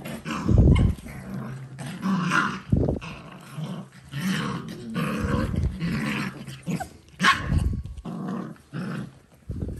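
Dalmatian puppies growling and yapping as they play, in a string of short bouts.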